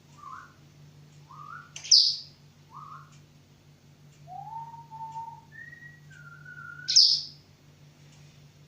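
Pet bird whistling a string of short notes that slide up and down, broken twice, about two seconds and about seven seconds in, by a loud sharp high-pitched call.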